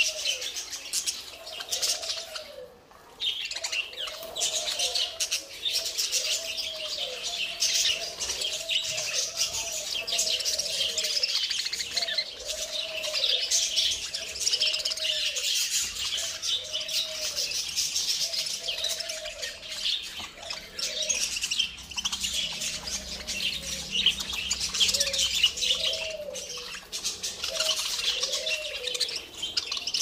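A flock of budgerigars chattering and chirping nonstop, a dense twittering of many birds at once. Beneath it, a lower call repeats about once a second, each one rising and then falling in pitch.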